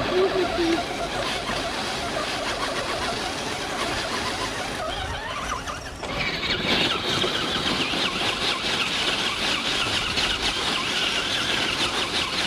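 Electric motor and gears of a radio-controlled scale crawler whining under load as it climbs wet rocks, the pitch rising and falling with the throttle. About halfway through the whine turns louder and higher.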